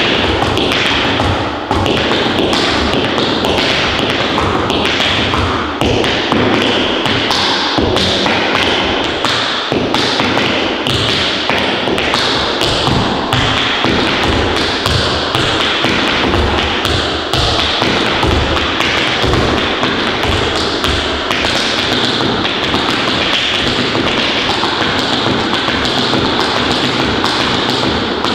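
Hard dance shoes tapping and stamping on a wooden floor in a fast, unbroken stream of sharp taps mixed with heavier heel and toe beats.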